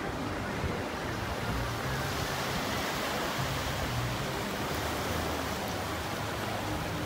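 Steady rush of ocean surf and wind, with a faint low hum coming and going underneath.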